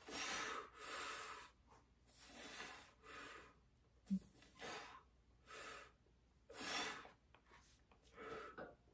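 A man breathing hard in short, sharp breaths, about eight in nine seconds, straining through a set of one-arm overhead dumbbell triceps extensions. A brief low thump about four seconds in.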